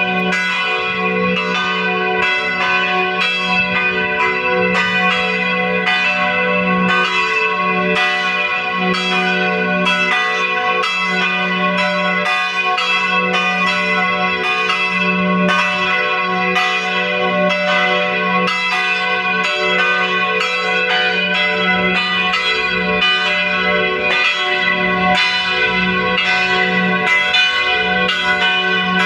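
Two church bells ringing together in a continuous peal, their strokes coming evenly and overlapping over a sustained hum of ringing tones.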